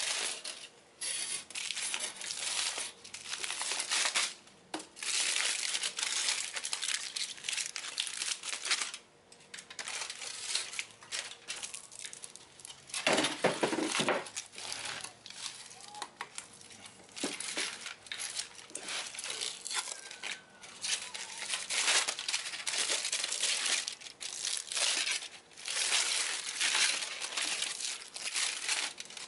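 Aluminium foil crinkling and tearing in irregular bursts as it is unwrapped and crumpled off an axe handle, with a louder, fuller burst of crumpling about 13 seconds in.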